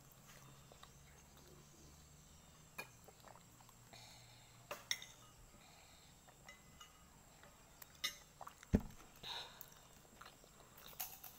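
Mostly quiet with scattered faint clicks and small knocks as a plastic water bottle is handled and drunk from, with a sharper knock about three-quarters of the way through.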